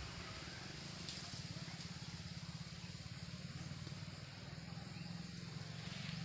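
An engine running steadily, a low, rapidly pulsing drone under an even outdoor hiss.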